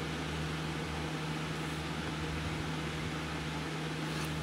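Steady low hum under an even hiss: background room noise.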